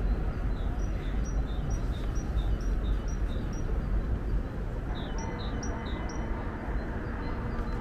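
A songbird singing a quick repeated two-note phrase, a high note then a lower one, two or three times a second. It sings one run, pauses about halfway through, then sings a shorter run, all over a steady low rumble.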